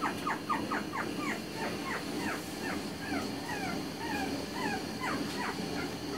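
Pomeranian puppy whimpering in runs of short, high squeaks that slide down in pitch, several a second, spacing out a little after the first couple of seconds.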